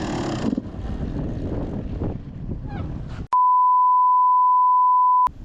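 Dirt bike engine running with wind noise on the microphone, then a loud, steady, one-pitch beep that cuts in sharply and lasts about two seconds: a censor bleep over a spoken word.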